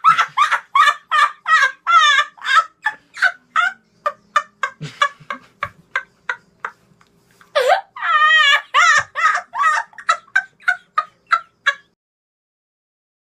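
Rapid high-pitched cackling laughter, a quick run of short bursts about four a second with two warbling stretches, around two seconds and eight seconds in. It thins out briefly in the middle and stops about a second before the end.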